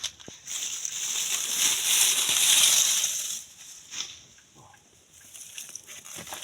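Dry weeds and maize leaves rustling and crackling as they are pulled and cleared by hand: a loud rustle that swells for about three seconds, then scattered snaps and clicks.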